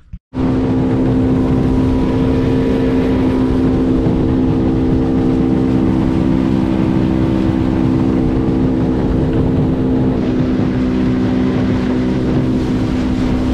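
Small skiff's outboard motor running steadily at cruising speed, its note holding at one pitch over a steady rush of wind and water.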